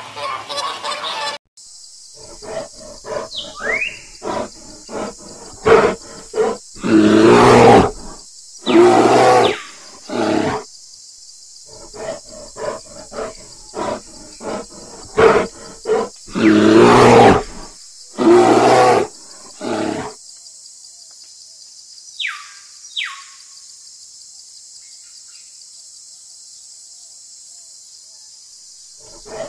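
An animal calling over and over in loud, deep calls of varying length, the longest about a second, which stop about two-thirds of the way through; two short falling squeaks follow a little later over a steady faint hiss.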